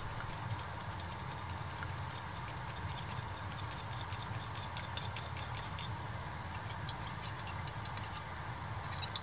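Small wire miso whisk stirring miso paste inside a ladle, its wires clicking faintly and rapidly against the ladle. A steady low hum runs underneath.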